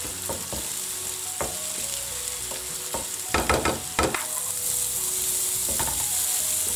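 Ground chili, shallot and garlic paste sizzling in hot oil in a nonstick wok as a wooden spatula stirs and scrapes it, frying the paste until fragrant. The sizzle is a steady hiss. It grows slightly stronger after the middle, with scattered spatula scrapes and a quick run of them about three to four seconds in.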